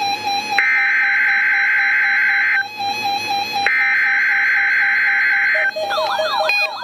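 NOAA Weather Radio SAME (EAS) digital header bursts: two harsh, screechy data-tone bursts, each about two seconds long, a second apart, over a steady pulsed beep from the receiver. About six seconds in, a warbling alert of repeated sweeping tones and quick beeps starts.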